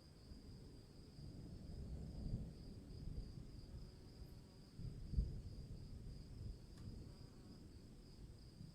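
Distant thunder rumbling low, swelling about two seconds in and again, loudest, about five seconds in, over steady high-pitched cricket chirping.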